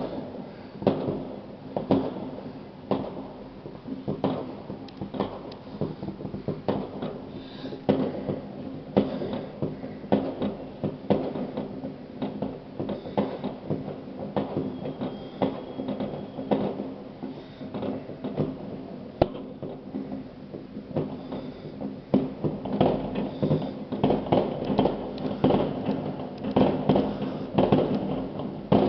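New Year's fireworks and firecrackers going off across a city, a continual patter of irregular bangs and crackles that grows denser in the last several seconds. A steady low hum runs underneath.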